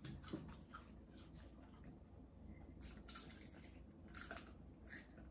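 Near silence with faint eating sounds: chewing and a few soft, short crunches or clicks, around three seconds in and again after four.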